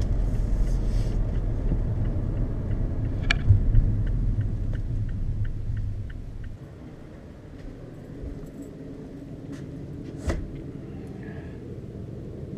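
Car cabin noise while driving: low engine and road rumble with a run of evenly spaced ticks and a sharp click. About six seconds in it gives way to a much quieter steady room hum, broken by one sharp knock near the ten-second mark.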